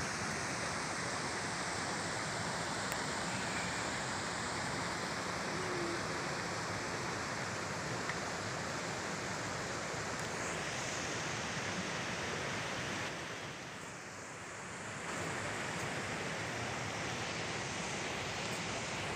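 Steady rushing outdoor noise with no distinct events, easing off briefly about two-thirds of the way through.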